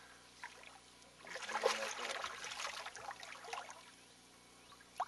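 Water splashing at the surface for about two seconds, starting a little over a second in, with one sharp click near the end.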